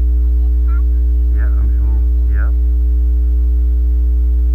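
Loud, steady low electrical hum in the recording, with a few fainter steady higher tones over it.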